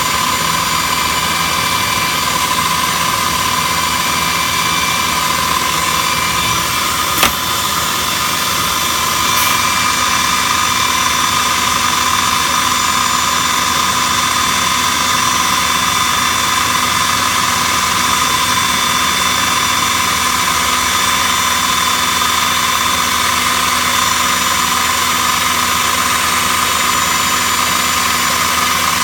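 CNC router with boring heads and a saw unit running: a steady high whine and hiss from its spindles and motors, with a sharp click about seven seconds in.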